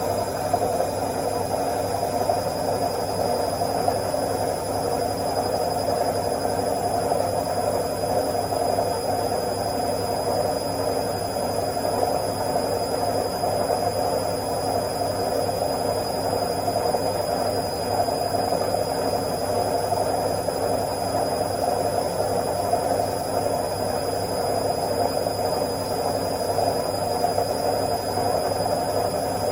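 Washing machine in its spin cycle, the drum turning at speed with a steady, even whirring hum.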